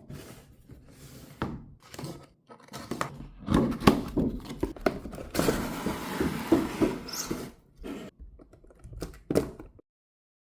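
Packaging and toy pieces being handled at close range: irregular thunks, knocks and clicks, with a stretch of continuous rustling in the middle. It all stops abruptly near the end.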